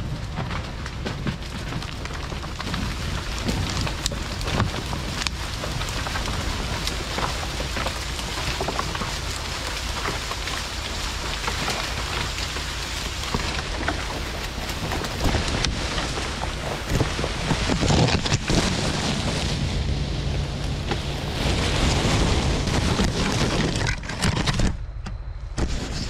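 Bulldozer running under load while pulling a tree out by rope, heard as a dense, continuous crackling and rattling noise with many knocks throughout.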